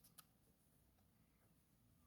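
Near silence: faint room tone, with one small click just after the start.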